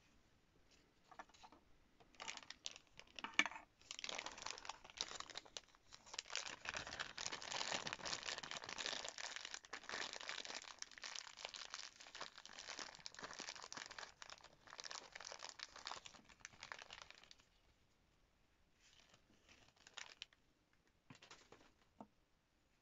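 Clear plastic bag crinkling and rustling as hands squeeze and pull soft blue flossy clay out of it, dense and steady for about fifteen seconds. A few short, fainter crackles follow near the end.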